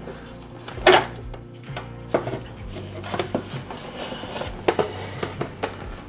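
Outer casing of a Breville Barista Express espresso machine being handled and taken off. There is one sharp knock about a second in, then scattered lighter clicks and scrapes of the panel against the machine's frame.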